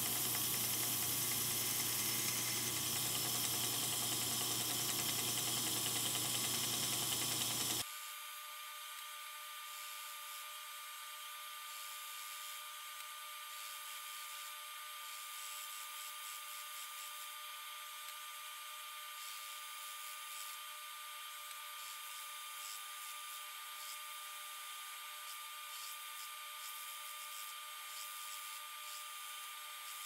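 Belt grinder running with a steel knife blade held against the abrasive belt, a steady grinding noise. About 8 seconds in the sound drops abruptly, losing its low hum, and carries on quieter.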